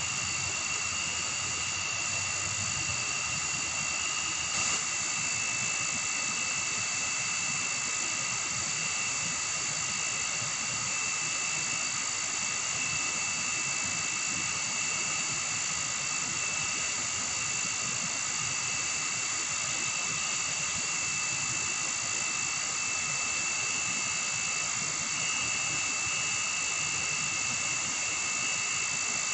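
Night insect chorus of a tropical forest: several steady, high-pitched drones layered together, unbroken throughout.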